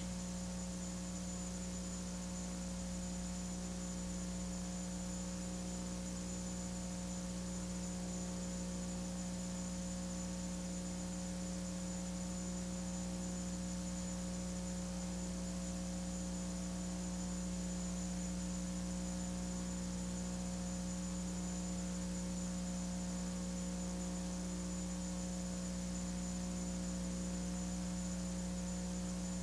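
Steady electrical hum in the audio line, unchanging throughout, a low buzzy tone with several fainter overtones and faint hiss.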